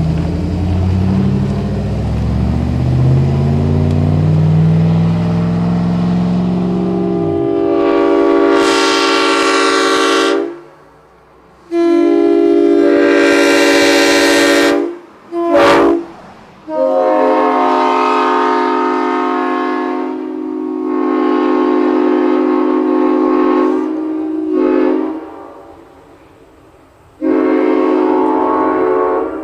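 Restored multi-chime diesel locomotive air horn sounding a chord in a series of blasts: two long blasts, a short one, a long drawn-out blast, and another starting near the end. Before the first blast a low motor hums, its pitch rising.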